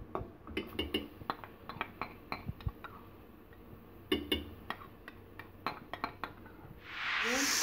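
Wooden spoon knocking and scraping against a steel pot in a series of light, irregular clicks while onions and ginger-garlic paste are stirred in oil. Near the end a loud frying sizzle starts.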